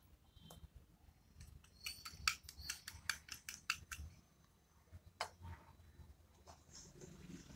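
Light metallic clicks of a miniature steel cup and spoon tapping against a small steel bowl as flour is tipped in: about ten quick clicks over two seconds, then a single tap about a second later.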